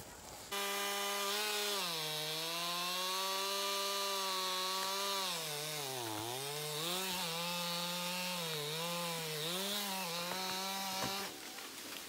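Two-stroke chainsaw running at high revs, its pitch sagging repeatedly as the chain bites into wood, deepest about six seconds in. It cuts off abruptly near the end.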